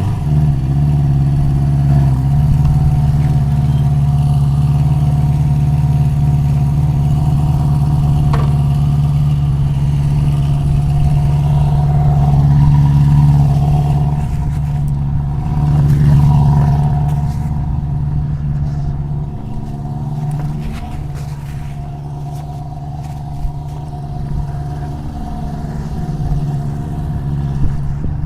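1973 Honda CB350 Four's air-cooled inline-four engine running steadily after a restart. It picks up revs twice about halfway through, then drops back and settles a little lower.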